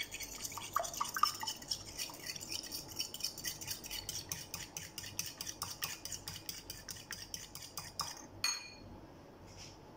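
An egg being beaten with a metal utensil in a ceramic bowl: quick repeated clicking of the utensil against the bowl, several strokes a second. It ends with a sharper knock about eight and a half seconds in.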